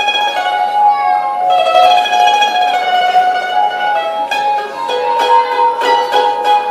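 Live band playing an instrumental passage with guitars: a melody of long held notes over plucked guitar, with rhythmic strumming coming in more strongly about four seconds in.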